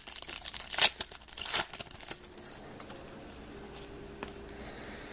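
Trading-card pack wrapper crinkling and tearing in a few quick rustles during the first two seconds, then faint room noise.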